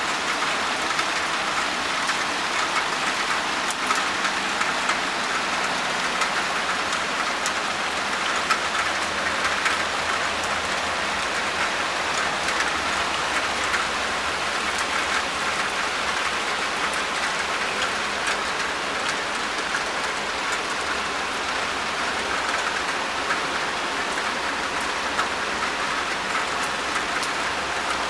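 Steady rain falling on a wet paved balcony floor: an even hiss made up of many small drop hits, unchanging in strength.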